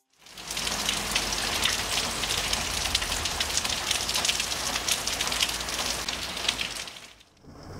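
Steady rain falling and pattering, an even hiss full of small drop taps; it fades in at the start and fades out about seven seconds in.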